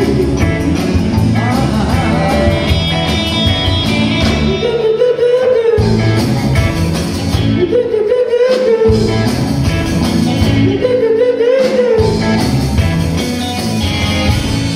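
Live rock and roll band playing with acoustic and electric guitars and a drum kit. Three times the rhythm drops out for about a second, each break filled by a short wavering melodic phrase.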